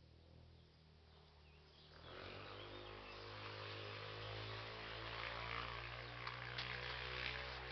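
Outdoor ambience with a steady low hum and a faint hiss, growing louder about two seconds in, with a few short clicks in the second half.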